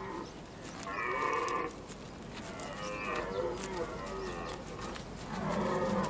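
Red deer stags roaring during the rut: three drawn-out bellowing calls, one about a second in, one around three seconds in, and one starting near the end.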